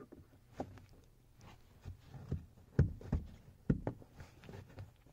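Thin flathead screwdriver prying at the plastic rear overhead light unit set in a car headliner: scattered small clicks and taps of metal on plastic, with a few sharper knocks a little under three seconds in and around four seconds in.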